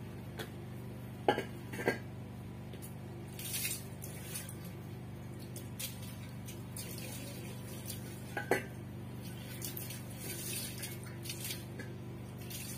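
Soapy water poured from a plastic basin over a steel bar, splashing in short spells, with a few sharp clinks and knocks of the basin and metal: two in the first two seconds and another a little past the middle.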